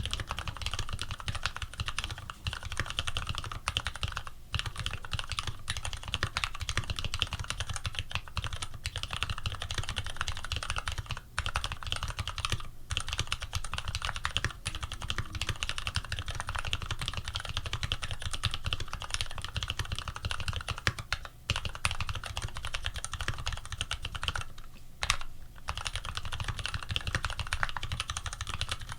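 Continuous typing on an Archon FX mechanical keyboard fitted with lubed Retooled Black linear switches, 65 g springs, PBT keycaps and an aluminium plate: a dense run of key presses with a few brief pauses.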